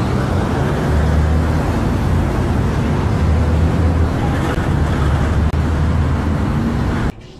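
Steady engine and road noise of a moving car, with a low hum under a broad rush. It cuts off abruptly near the end.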